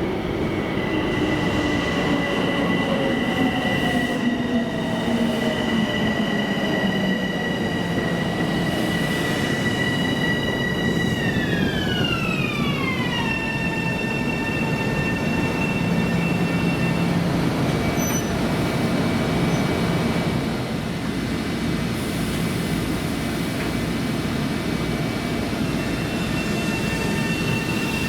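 Long Island Rail Road electric multiple-unit train pulling into the station, its propulsion whining. A low tone falls steadily as it slows, and high steady tones slide down together partway through, then hold. Near the end the high tones start rising again as the train begins to pull away.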